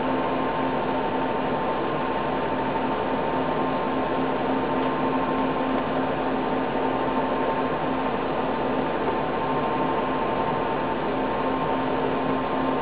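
Steady hiss with a constant electrical hum, unchanging throughout: room tone.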